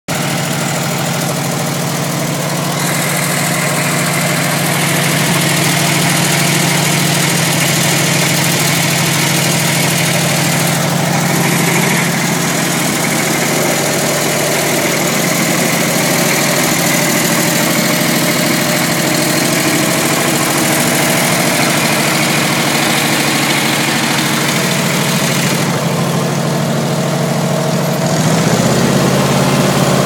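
Engine of a 1950s Cranvel Wombat self-propelled backhoe running steadily at idle. Near the end its note drops lower and gets a little louder.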